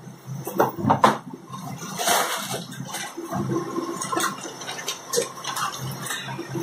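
Plastic packaging sheets rustling and crinkling as they are handled, with a couple of sharp knocks about a second in.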